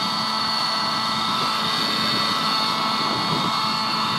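Glow-fuel engine of a model helicopter running steadily, a high-pitched whine that holds an even pitch and level.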